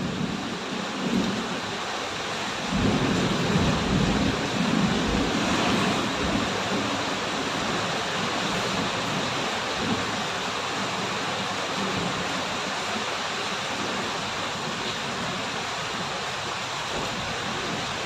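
Steady rain, an even hiss, picked up on a phone microphone, with a low rumble swelling between about three and six seconds in.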